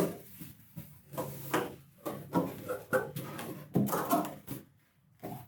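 Cardboard product box being opened by hand: a string of rubbing, rustling and knocking sounds from the packaging, dying down near the end.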